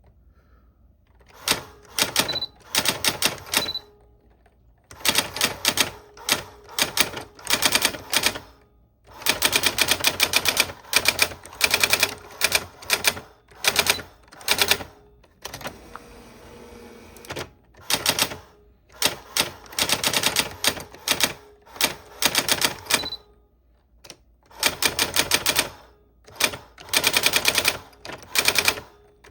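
Old typewriter being typed on: quick runs of sharp key strikes in bursts of a second or two, broken by short pauses.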